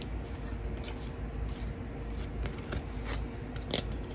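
Light rustling and a few soft clicks of a photocard being handled in its clear plastic sleeve and toploader, over a steady low background hum.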